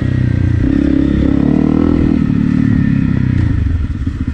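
Honda CRF250 Rally's single-cylinder engine, fitted with an FMF PowerCore 4 exhaust, running at steady revs while riding a dirt trail. Near the end the revs drop and the engine's separate firing beats can be heard.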